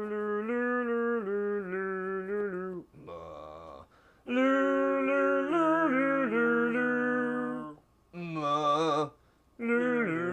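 Voices humming a wordless carol tune in harmony, in phrases of held notes with short breaks between them, four phrases in all.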